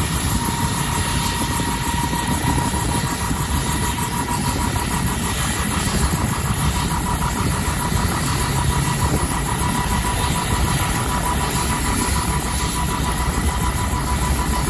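Turbine engine of a Huey-type medium helicopter running during start-up, with the main rotor turning slowly. A steady whine sits over a low rumble, with a faint regular pulsing from the rotor.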